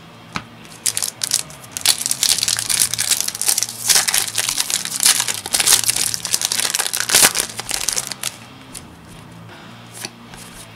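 A foil Yu-Gi-Oh booster pack wrapper being crinkled and torn open, with a dense crackle of foil lasting several seconds. Near the end it eases off to a few light clicks as the cards are handled.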